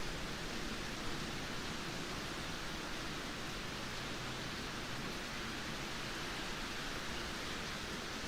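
Steady rainfall: an even hiss that holds level throughout.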